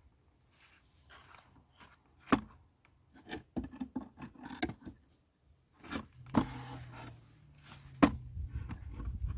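Handling noises: several sharp knocks and clicks with rubbing between them, and a low steady hum that comes in about six seconds in.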